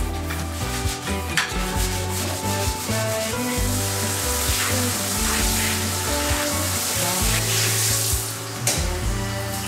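Long-handled scouring-pad brush scrubbing a wet tiled shower floor, a rough rubbing sound, over background music with sustained notes. From about halfway through, water splashing onto the floor and glass adds a hiss.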